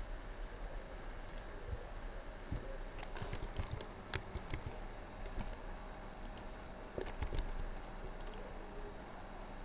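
Typing on a computer keyboard in short bursts of key clicks, about three seconds in and again about seven seconds in.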